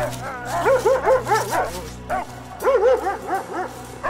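Dogs barking in quick volleys, with a second volley about two seconds after the first, over background music.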